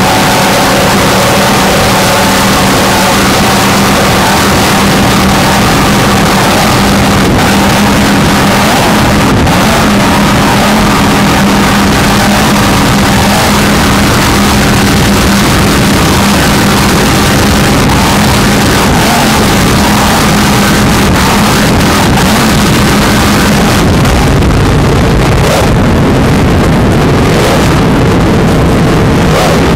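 Powerboat engines running flat out at high speed, a loud steady drone over rushing water and wind on the microphone. The engine note changes about 24 seconds in.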